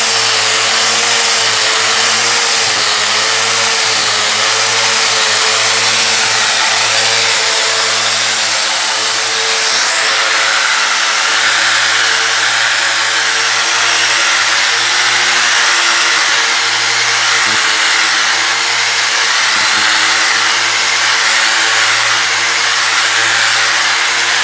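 Electric angle grinder running with an 800-grit dry resin diamond polishing pad pressed onto a marble floor: a steady motor whine that wavers slightly in pitch over a dense grinding hiss.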